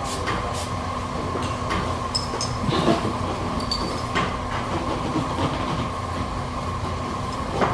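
Rustling and soft clicks from hands working through freshly curled hair, over a steady low rumble and faint hum.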